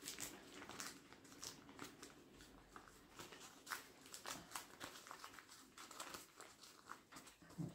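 Faint, irregular crinkling of baking paper as hands fold pizza dough over a filling, with soft light clicks scattered throughout.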